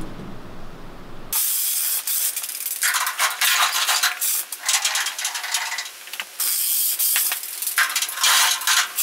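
Car body on a wheeled steel jig being rolled across a concrete floor, pulled with a trolley jack: caster wheels and metal frame rattling and clicking, starting about a second in.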